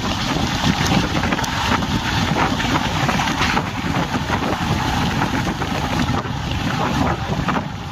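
A moving passenger train, the Tamil Nadu Express: a steady low rumble of running gear with a rush of wind on the microphone and a few faint clicks.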